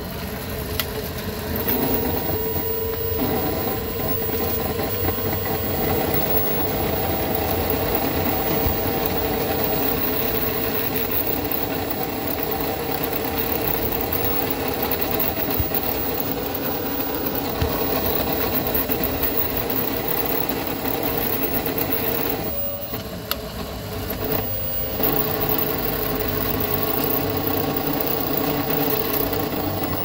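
Rear differential transaxle of a 1998 Club Car DS golf cart running while the cart is driven, a steady mechanical noise with a held tone, which dips twice for a moment about three-quarters of the way through. The noise comes and goes with load and is loudest when the cart is neither accelerating nor slowing, which the owner puts down to the differential.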